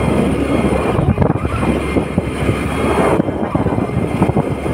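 Wind buffeting the microphone of a phone held out on a moving motorbike, over the bike's engine and road noise.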